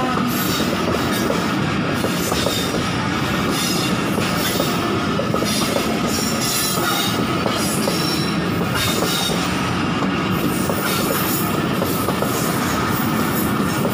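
Pakistan Railways passenger coaches rolling past close by on a curve: steady, loud wheel-and-rail rumble with a continuous high squeal from the wheel flanges grinding through the bend, and occasional clacks at the rail joints.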